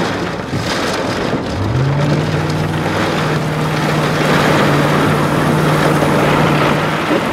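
Car driving on a wet road in rain and wind, a steady rush of rain and road noise around the vehicle. About a second and a half in, a low engine hum rises and then holds steady.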